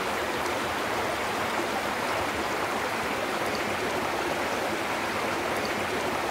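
Stream water flowing, a steady rush with no break or change.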